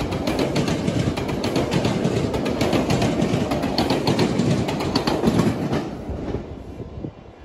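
Metrolink commuter train's double-deck passenger coaches rolling past close by, a steady rumble with repeated wheel clacks over the track. The sound fades away about six seconds in as the end of the train passes.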